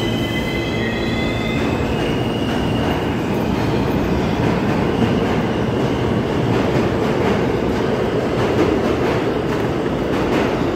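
New York City subway train braking to a stop at a station platform, its wheels squealing in thin high tones that drift slightly down and fade out about two to three seconds in. Steady rumbling noise from the standing train carries on after that.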